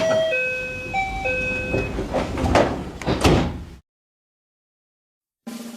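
Japanese train's onboard announcement chime: four short electronic notes after a sharp click, followed by about two seconds of noisy running and rattling sound that cuts off abruptly. A new chime melody begins at the very end.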